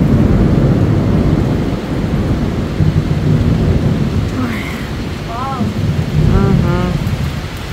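Thunder rumbling over heavy, wind-driven rain in a thunderstorm, loud at first and slowly easing off.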